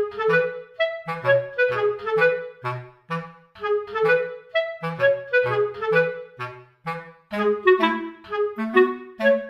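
Background music: a light, bouncy tune of short, separated notes over a bass line that moves in short notes.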